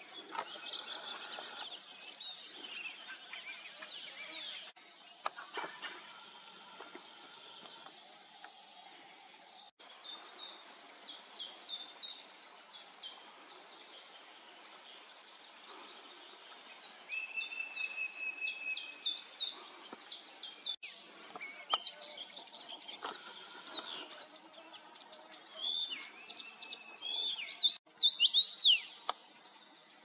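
Several songbirds singing in short recordings that change abruptly every few seconds: quick series of high chirps, a steady whistled note, and clear whistles that rise and fall near the end.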